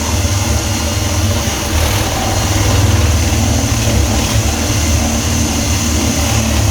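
Power drill running steadily under load, boring a 20 mm flat (spade) bit into the edge of a wooden door to make the hole for the latch.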